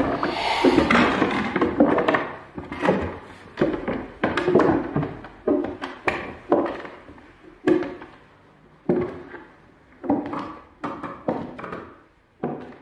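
An irregular series of hollow thuds, roughly one every half second to a second, each ringing out briefly before the next.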